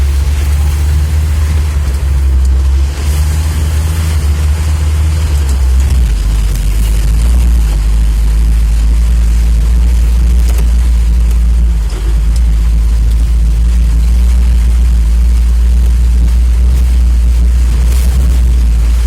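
UAZ-469 off-roader driving, its engine running steadily under load with heavy low drone and road noise. The engine note changes about six seconds in.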